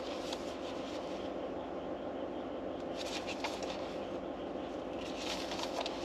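Steady hum of a parked car's cabin with its engine or fan running, holding several fixed tones. Soft rustling comes twice, about halfway through and again near the end.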